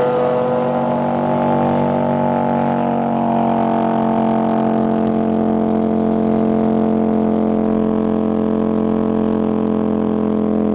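A vehicle engine held at constant revs, a steady drone that stays at one pitch throughout.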